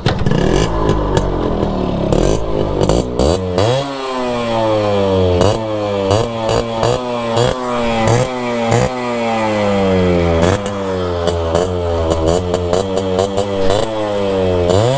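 Yamaha RX100's 98 cc two-stroke single-cylinder engine running, rough and uneven for the first few seconds, then revved in repeated quick throttle blips, the pitch snapping up and falling back about once a second.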